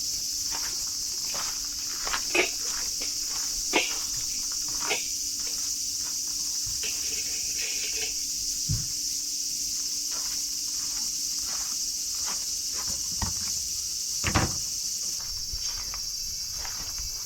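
Insects chirring in a steady high drone, with scattered knocks and taps on top, the loudest about two and a half, four and fourteen seconds in.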